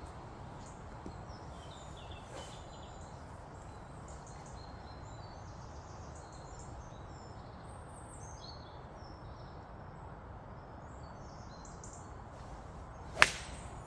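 Birds chirping over steady low outdoor background noise, then near the end a single sharp, loud crack of a 19-degree Dunlop driving iron striking a golf ball off a low tee.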